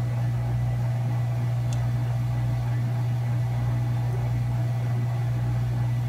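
Steady low electrical hum with a faint fan hiss from a running hot air rework station on the bench.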